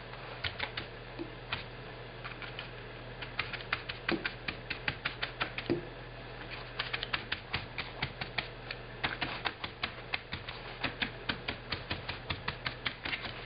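A paintbrush dabbing paint onto wet fabric laid on a metal baking sheet: quick, irregular taps in runs of several a second with short pauses. A low steady hum lies underneath.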